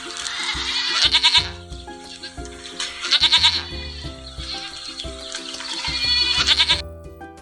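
Goat bleating: three loud, wavering calls about two and a half seconds apart over background music. The bleats stop shortly before the end.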